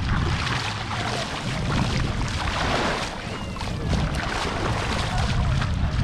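Small waves lapping and washing in the shallows at the water's edge, with wind rumbling on the microphone.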